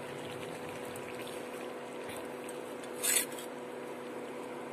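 Jackfruit curry simmering in the pan, a steady bubbling hiss with a faint steady hum under it. A short, sharper noise comes about three seconds in.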